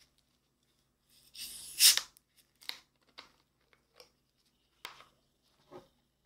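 Screw cap twisted off a plastic bottle of Coca-Cola: a fizzing hiss of escaping gas that builds for about a second to a sharp peak, followed by a few light clicks and taps as the bottle and cap are handled.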